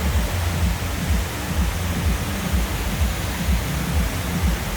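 Steady rushing water noise with an uneven low rumble underneath.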